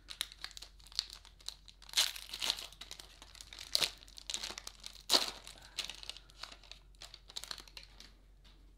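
Foil-lined wrapper of an Upper Deck Series 2 baseball card pack being torn open and peeled back, crinkling continuously, with sharper crackles about two, four and five seconds in.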